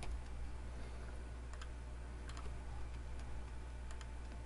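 Computer keyboard keystrokes: a few scattered, faint clicks over a steady low hum.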